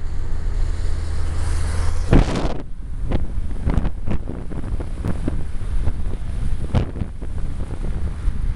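Steady low rumble of a car driving, with wind buffeting the microphone. About two seconds in there is a loud rush of wind, and after it the rumble goes on with irregular thumps and crackles of wind on the microphone.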